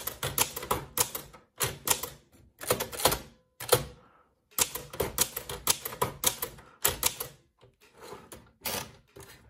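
Sears Chevron II typewriter being typed key by key for an alignment test, its typebars clacking against the platen as lowercase and shifted capital h alternate. Two runs of strokes are split by a short pause about four seconds in, and a few lighter clicks come near the end.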